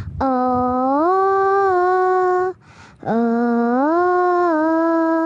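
A young girl singing the hymn tune without words into a handheld microphone: two long held phrases, each stepping up to a higher note partway through, with a short breath between them.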